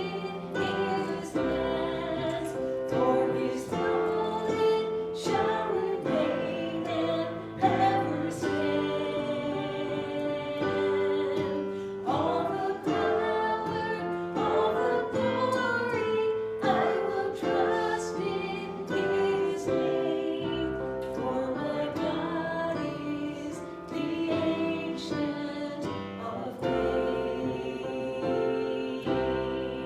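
Church worship music: voices singing a song over instrumental accompaniment.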